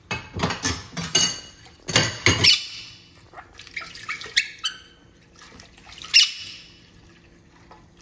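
Water splashing in irregular short bursts on a plate in a metal sink as a monk parakeet bathes under a running tap, with the loudest splashes in the first couple of seconds and one sharp splash about six seconds in.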